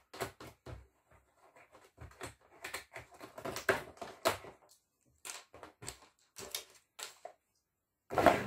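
Cardboard packaging being handled and pulled apart by hand: irregular clicks, scrapes and taps on a cardboard insert, busiest around the middle, with a louder knock near the end.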